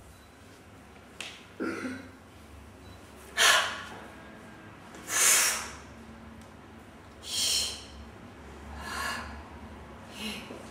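A person's sharp, breathy exhalations or gasps, about six in a row, one every second and a half to two seconds, each lasting about half a second.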